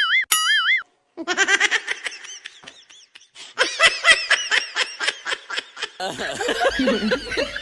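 A warbling comic boing sound effect ends within the first second, then a run of rapid ha-ha laughter bursts follows.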